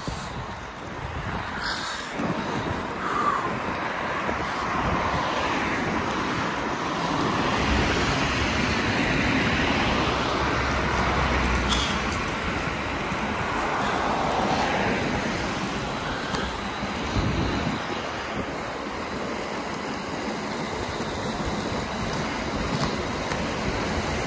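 Cars passing on a wet road, their tyre hiss swelling and fading, over a steady rushing noise of wind and inline-skate wheels rolling on asphalt.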